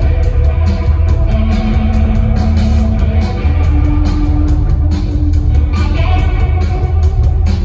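Live rock trio playing: electric guitar, bass guitar and drums, with long held notes over a heavy low end.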